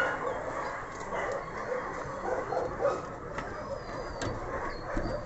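Dogs barking faintly among steady outdoor background noise, with no single loud event.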